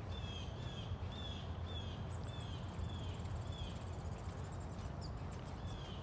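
A songbird sings a series of about seven short, falling whistled notes, roughly two a second, then one more near the end, over a steady low rumble.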